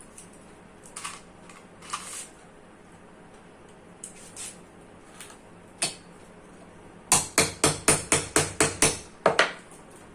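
Hammer tapping on metal: a few light scattered taps, then a quick run of about nine sharp strikes, roughly four a second, near the end.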